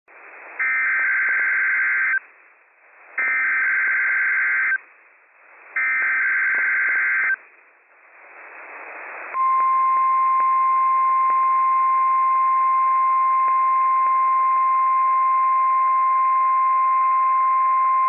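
NOAA Weather Radio Emergency Alert System test signal: three identical buzzy digital SAME header bursts, each about a second and a half long, with radio hiss between them. About nine seconds in comes the steady 1050 Hz warning alarm tone, which holds to the end.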